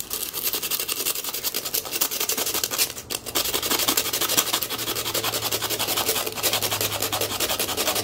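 Coarse 60-grit sandpaper rubbed in quick, even back-and-forth strokes over the handle end of a metal lockpick blank, scuffing the surface so epoxy can grip it. There is a brief pause about three seconds in.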